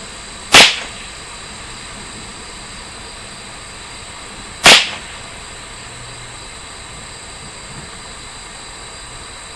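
Two shots from a Ruger 10/22 semi-automatic .22 LR rifle firing CCI Standard Velocity rounds, about four seconds apart, one aimed shot at each target. Each is a sharp crack with a short tail, over a steady background hiss.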